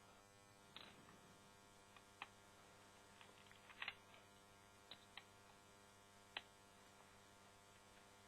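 Near silence over a steady low hum, broken by a handful of faint, scattered clicks: a Torx screwdriver ticking against the small screws that hold the Apple TV's hard drive.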